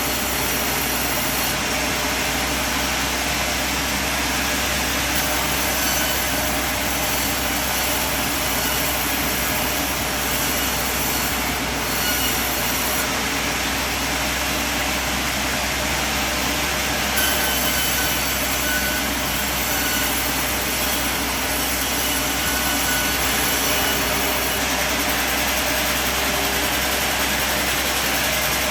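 Band sawmill running steadily: a continuous, even machine noise with no breaks.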